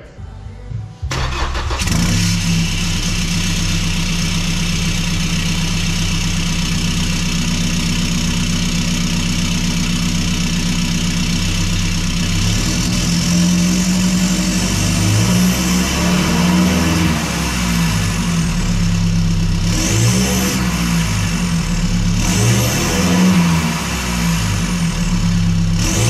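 Straight-piped 2.8L LWN Duramax four-cylinder turbo-diesel in a 2017 Chevy Colorado, running with no muffler or DPF. It starts about a second in and settles into a steady idle. It is blipped a few times in the last several seconds, with a high whistle rising and falling with the revs.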